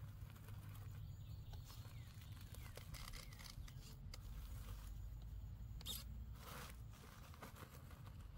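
Custom Axial Capra RC rock crawler creeping across steep mossy rock: faint scrabbling and clicking of its tires on the rock, with a couple of louder short scrapes about six seconds in, over a low steady rumble.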